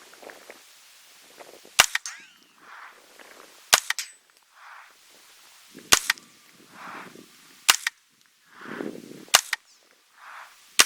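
Smith & Wesson M&P 15-22 short-barrelled .22 LR rifle firing six semi-automatic shots, each a sharp crack about two seconds after the last. Each shot is followed about a second later by a softer, duller sound.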